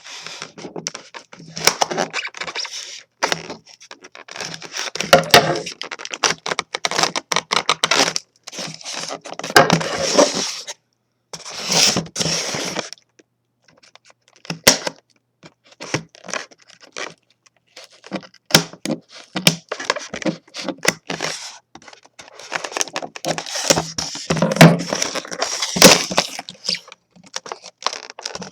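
Packaging of a diecast scale model being opened by hand: irregular rustling and tearing with many sharp clicks, in bursts separated by short pauses.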